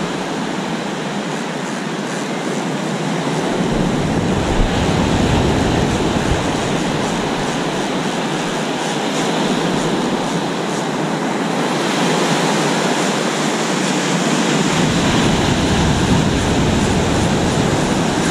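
Ocean surf breaking and washing up a sandy beach, a steady rushing noise that grows a little louder in the second half, with wind rumbling on the microphone.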